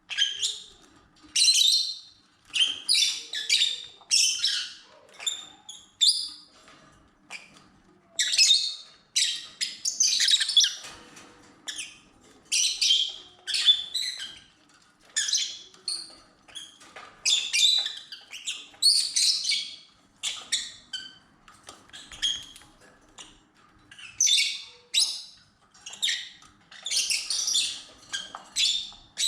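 Lovebirds chirping and squawking, with short shrill calls coming in quick clusters over and over.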